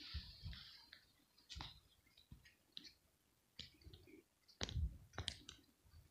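Faint, irregular clicks and soft thumps of handling noise on a hand-held camera, about a dozen in all, loudest a little before the end.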